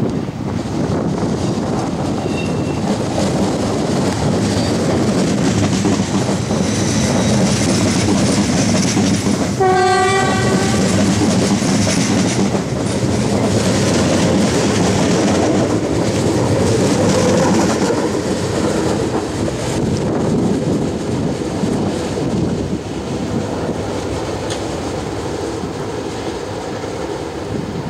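A train moving through the station with a steady running noise of wheels on rails. About ten seconds in it sounds its horn once: a single held note about a second long.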